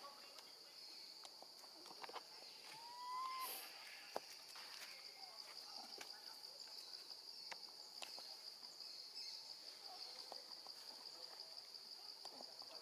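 Insects chirring steadily in a high, even drone, faint throughout. About three seconds in comes a short rising call, and a few soft clicks fall here and there.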